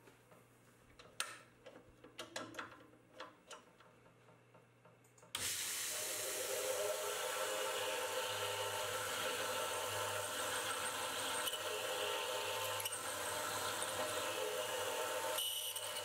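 About five seconds in, the spindle of a CNC-converted Precision Matthews PM25MV milling machine comes in abruptly and runs steadily, a whine over a hiss, as a drill cuts into an aluminium block. Before it there are only a few faint clicks.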